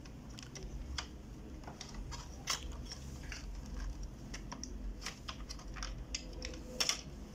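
Irregular small plastic clicks and ticks as the feed roller assembly and its plastic gears are handled and fitted in an Epson DS-1630 scanner's document feeder; the sharpest clicks come about two and a half seconds in and near the end.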